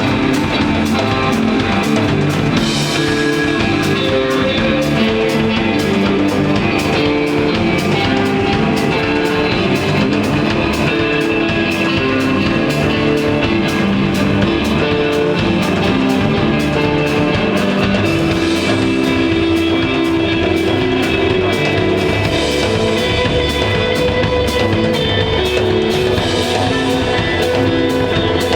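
Instrumental desert-rock band playing live: electric guitar over bass and drum kit, loud and steady throughout.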